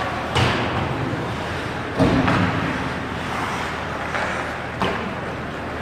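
Ice hockey play echoing in an arena: a steady wash of rink noise with three sharp knocks from sticks and puck. The loudest is a heavier thud about two seconds in.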